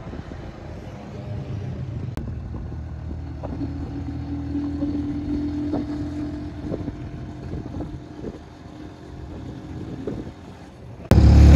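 A vehicle's engine and road noise heard from on board while driving along a highway, with a steady engine tone that grows louder for a few seconds in the middle. Just before the end the sound jumps suddenly to a much louder level.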